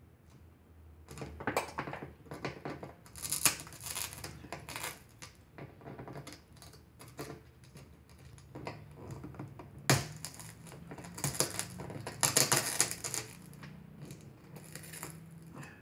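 Pliers working glass pieces out of a soldered stained glass panel: irregular clinks, cracks and scrapes of glass and metal, with a sharp crack about ten seconds in and a busy cluster a little after twelve seconds.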